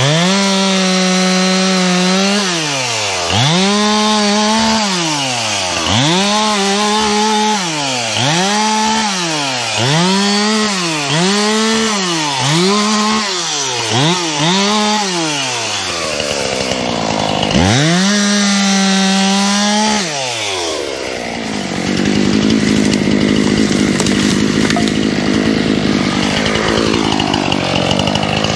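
Two-stroke chainsaw revved to full throttle and dropped back toward idle over and over, about once every second and a half. For the last several seconds it is held at steady high revs, cutting wood.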